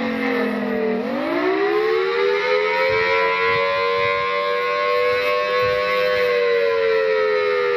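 Outdoor tornado warning siren wailing, a chord of several close tones. Its pitch falls to a low point about a second in, climbs back up over the next two seconds, holds high for a few seconds, then slowly falls again.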